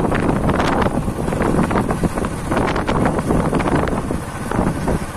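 Wind buffeting the microphone: a loud, uneven rumble with gusty blasts throughout.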